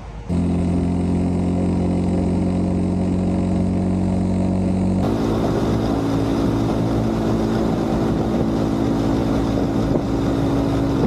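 Motorcycle engine running at a steady pitch while riding, with road and wind noise. The sound changes abruptly about five seconds in to a different, steady engine note.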